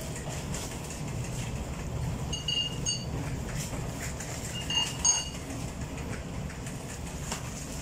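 Steady low machine hum in a bakery, with light crinkling of plastic bags as bread rolls are bagged. Two short bursts of high squeaky tones come a little after two seconds and again around five seconds.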